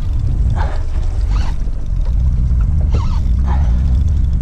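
Wind buffeting the microphone in a heavy low rumble, growing stronger in the second half, with a few brief faint muffled sounds over it.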